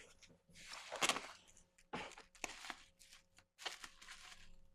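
Plastic wrapping rustling and crinkling in short bursts as it is handled, with the loudest crackle about a second in.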